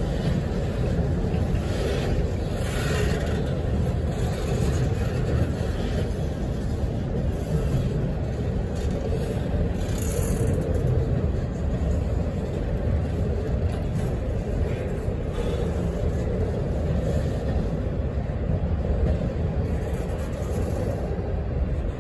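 Freight train cars rolling past on the adjacent track: a steady rumble.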